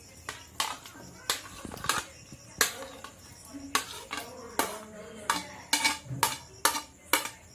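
Utensil knocking and clinking against a cooking pan as pieces of chicken are tipped into the sauce, in irregular sharp strikes about two a second.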